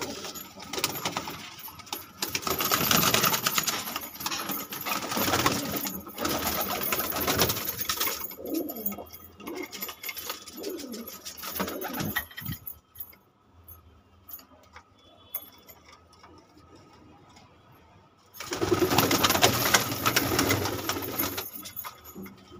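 Domestic pigeons cooing in a loft, with two louder spells of rustling noise, one in the first third and one near the end.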